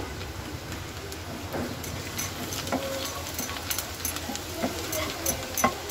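Chopped garlic sizzling in butter and olive oil in a pan as it browns, a steady hiss with scattered light crackles.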